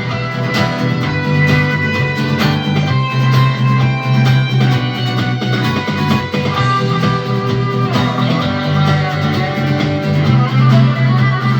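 Instrumental break of a rock song: guitar over a backing track with a steady bass line, no singing.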